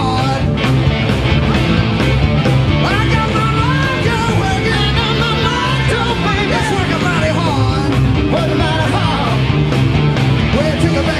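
Live rock band playing loudly: electric guitars, bass and drums, with a lead line bending up and down in pitch over the band in the middle of the stretch.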